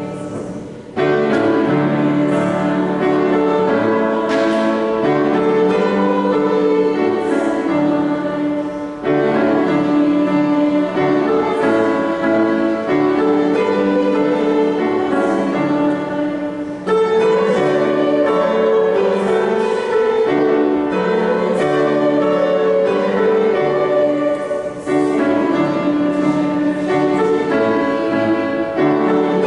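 Hymn sung with piano accompaniment, pausing briefly between lines about every eight seconds.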